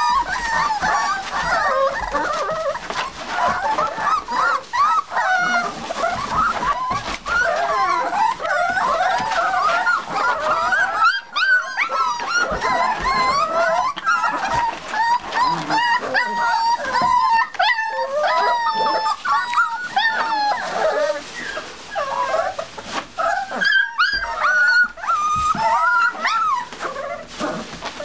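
A litter of seven-week-old Olde English Bulldogge puppies whining and whimpering together: many high, overlapping cries that waver in pitch, with a few short breaks.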